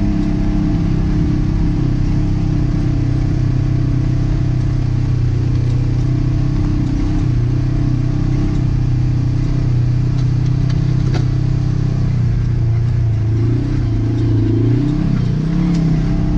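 Side-by-side UTV engine running steadily while the machine drives along a rough dirt trail, heard from inside the open cab. Near the end the engine note dips and then climbs again as the throttle changes, and a single sharp click cuts through about eleven seconds in.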